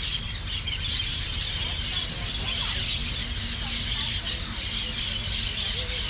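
A large flock of birds chattering and chirping continuously, many voices overlapping, as they settle in to roost at dusk. A steady low rumble runs underneath.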